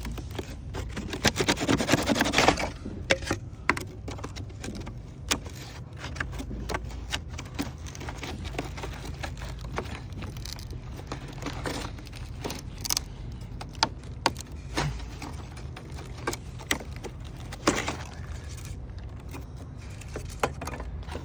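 Old cedar wood shake being pried and scraped out of a roof: irregular clicks, scrapes and small knocks of wood fragments. The busiest clattering comes about a second in, with a few sharper knocks later, over a steady low background rumble.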